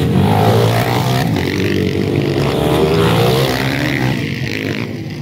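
Two motocross bikes' engines revving hard as they ride past close by, the pitch rising and falling with the throttle, then easing off slightly as they move away near the end.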